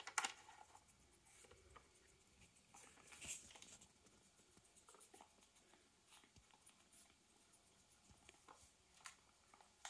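Near silence with faint, scattered taps and clicks of a small dog's nose and paws working the plastic pieces of a Trixie Poker Box 2 puzzle feeder, a slightly louder knock about three seconds in.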